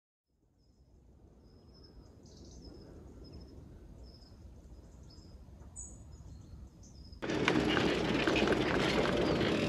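Faint outdoor ambience with a low rumble and short high bird chirps, rising gradually out of silence. About seven seconds in, it cuts abruptly to a much louder, steady rushing noise.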